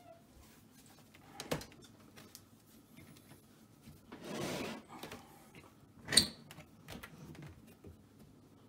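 Handling noises at a dishwasher being started: a few light clicks, a soft rustle lasting about a second, and one sharp click about six seconds in, like a door latch or button.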